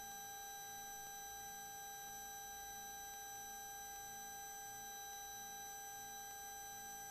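Faint, steady electronic whine of several fixed tones on an aircraft intercom audio feed between transmissions, with a faint low pulsing about twice a second underneath.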